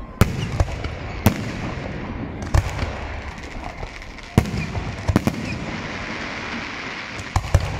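Aerial firework shells bursting overhead: a series of about eight sharp bangs at irregular intervals, several in quick succession near the end, over a steady background noise.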